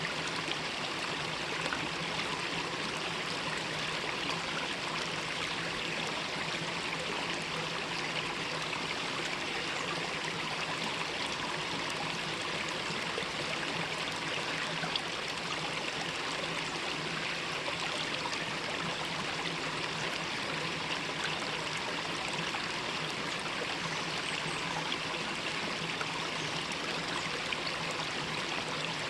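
A mountain stream running steadily over rocks, a continuous rushing and trickling of water.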